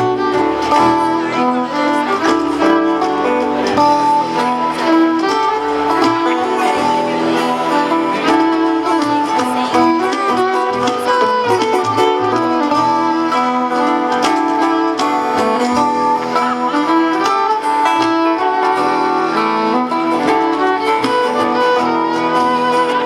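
Live acoustic string band playing an instrumental break between sung verses, with no singing.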